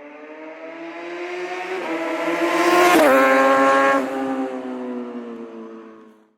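A sport motorcycle passing by at speed. Its engine note climbs and grows louder as it approaches, drops sharply in pitch as it goes past about three seconds in, then fades away and cuts off abruptly.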